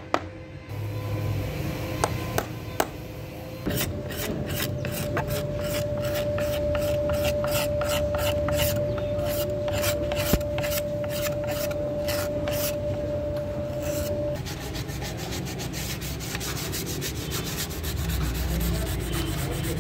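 Metal blade scraping the charred surface off burnt wooden furniture by hand, in a steady run of back-and-forth rasping strokes. After a short pause the strokes come quicker and closer together near the end.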